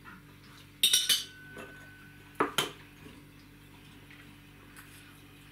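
Cutlery clinking against plates: a quick cluster of clinks about a second in, one of them ringing briefly, then two more clinks at about two and a half seconds.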